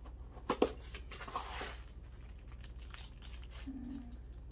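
A small cardboard box is handled and opened, and a plastic bag of door-lock parts crinkles. Two light knocks come about half a second in, and the rustling follows about a second in.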